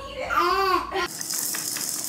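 A baby's short high squeal that rises and falls in pitch. About a second in it cuts off abruptly, giving way to a rattling, shaking sound over a steady hiss.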